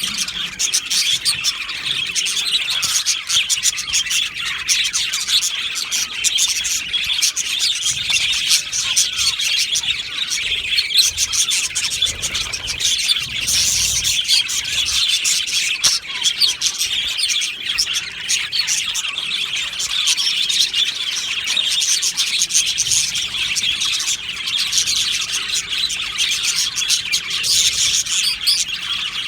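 A flock of budgerigars chattering and chirping together, a continuous, dense warble of many overlapping calls.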